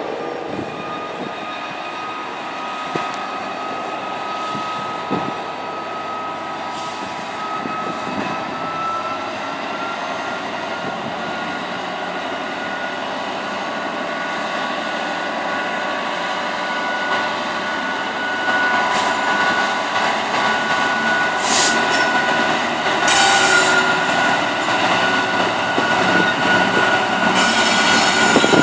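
GB Railfreight Class 66 diesel-electric locomotive, with its two-stroke V12 engine, running as it hauls a container train through a station. A steady high-pitched whine sits over the engine, and the sound grows louder from about two-thirds of the way in as the locomotive draws close, with a few short bursts of rail and wheel clatter near the end.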